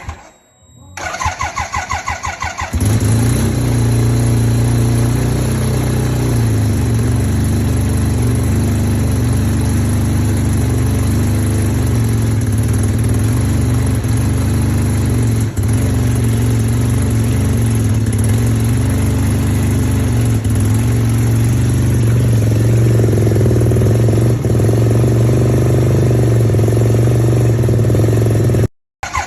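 1975 Suzuki RE5's single-rotor Wankel engine on a cold start: it cranks over in even pulses for about two seconds, catches about three seconds in, then runs at a steady idle. The sound stops abruptly near the end.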